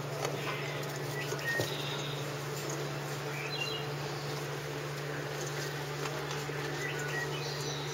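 Labrador puppies scrabbling and shuffling in loose wood shavings, with small scratchy clicks and a few short, faint high squeaks over a steady low hum.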